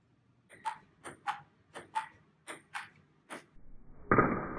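Ping-pong rally: the celluloid ball clicking off paddles and the table, a quick irregular series of sharp ticks. Near the end a louder steady sound sets in abruptly.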